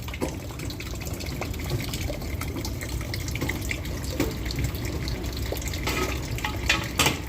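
Steady running water, a continuous splashing rush, with a few sharp knocks near the end.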